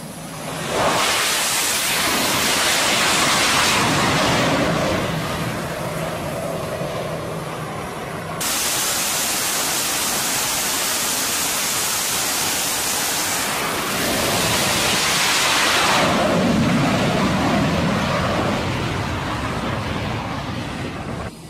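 F/A-18 Super Hornet jet engines running on an aircraft carrier flight deck: a loud, steady rushing noise. Its character changes sharply about 8 seconds in and again around 16 seconds.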